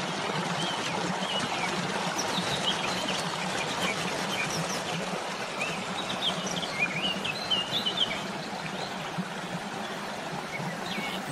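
Stream water running over rocks in a steady rush, with birds chirping above it now and then, most busily about six to eight seconds in.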